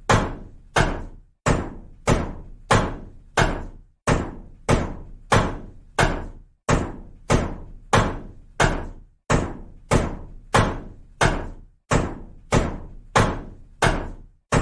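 A hammer striking over and over at an even pace, about three blows every two seconds, each blow fading out before the next.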